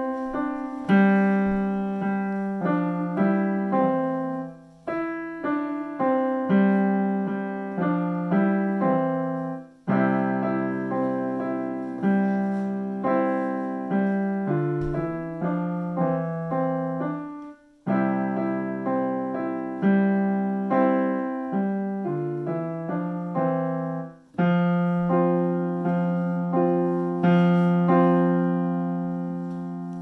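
Digital piano playing a simple melody over held low notes, in phrases that break off briefly about every five to seven seconds.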